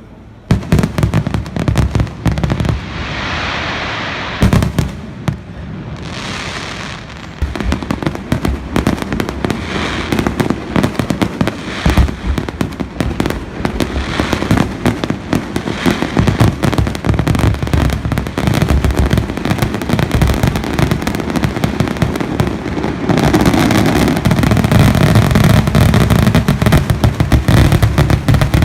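Fireworks display: a rapid, continuous string of sharp shell bursts and bangs with stretches of hissing crackle. About 23 seconds in, the barrage grows denser and louder.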